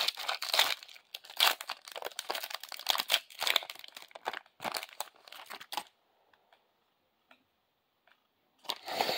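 Foil trading card pack wrapper being torn open and crinkled, a dense run of crackling rustles for about six seconds. Then near quiet with a few faint clicks, and another short burst of rustling just before the end.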